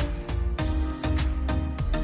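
Music with a steady beat: regular drum hits over a deep bass and sustained pitched notes.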